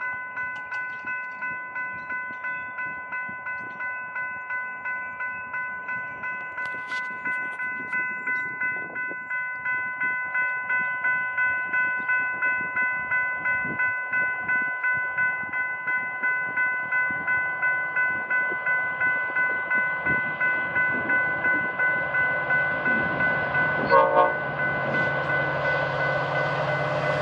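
Railroad grade-crossing warning bell ringing steadily, about two strokes a second, growing louder as a commuter train approaches. Near the end there is a brief loud sound, and the rumble of the arriving train builds under the bell.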